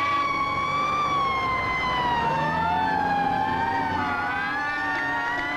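Fire apparatus sirens wailing, slowly rising and falling in pitch, with two or more sirens overlapping. A second siren winds up in pitch a little after two seconds in.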